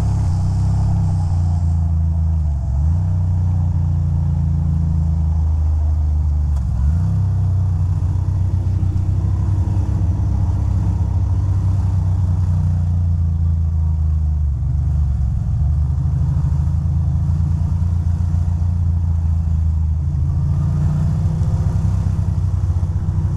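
2006 Ducati Monster 620's air-cooled L-twin engine running as the bike is ridden, heard loud and steady from the rider's position. The engine note dips briefly and recovers a few times.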